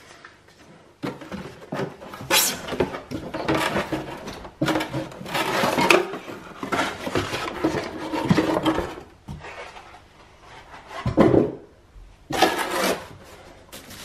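Plastic wrapping crinkling and cardboard and pulp packaging scraping and knocking as a wrapped coffee machine is pulled out of its box, with one louder thump about eleven seconds in.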